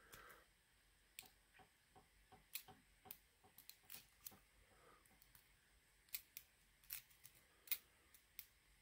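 Faint, irregular metallic clicks and ticks of a hook pick working the pin stacks of a mortise lock cylinder under a tension wrench, a few sharper clicks between about six and eight seconds in.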